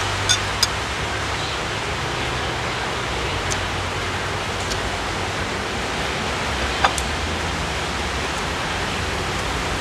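A steady, even hiss of background noise with a low hum, broken by a few light clicks of metal cutlery against dishes, two near the start and one about seven seconds in.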